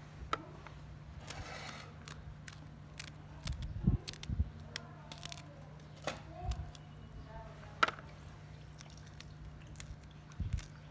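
Kitchen knife slicing fresh green chillies held in the hand: irregular crisp cuts and a few soft knocks, a couple of them louder about four and eight seconds in.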